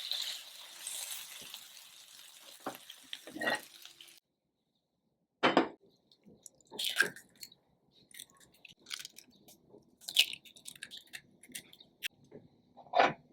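Frying hiss from a pan, fading over the first four seconds and cut off suddenly; after a short silence, a series of separate clinks and knocks of kitchen utensils and dishes.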